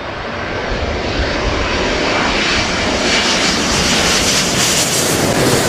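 Twin-engine widebody jet airliner on low final approach with its landing gear down, its engines getting steadily louder as it passes overhead.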